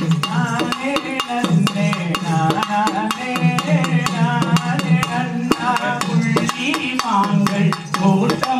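Tamil folk music for the valli kummi dance: a wavering melody over a quick, steady beat of sharp percussive strikes.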